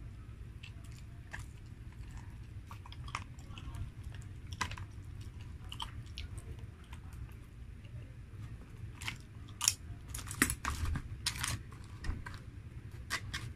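Close-up chewing and mouth sounds of a person eating by hand, with scattered wet clicks and smacks and a run of louder, sharper clicks about nine to eleven seconds in, over a low steady hum.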